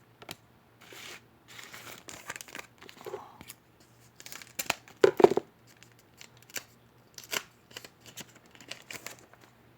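A baseball-card pack wrapper being crinkled and torn open, then cards being shuffled and flicked, with a few sharp snaps. The loudest snap is about five seconds in.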